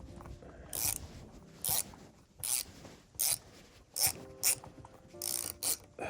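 Small hand ratchet driving a 2.5 mm hex bit, its pawl clicking in a short burst on each back-stroke, about eight strokes, with faint squeaks between them. The beadlock ring screw is hard to start and is being forced in.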